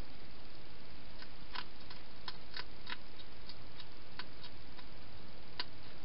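A hedgehog eating from a bowl: irregular small sharp clicks of chewing, with a stronger click near the end, over a steady hiss.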